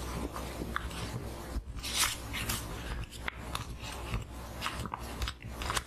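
Paper herbal-medicine bag handled close to the microphone, crinkling and rustling in irregular bursts, loudest about two seconds in.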